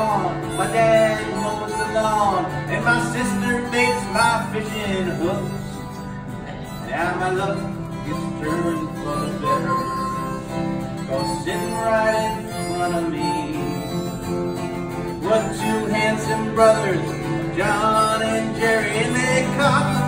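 Acoustic guitar strumming a country-style accompaniment, with a harmonica playing a bending melody over it.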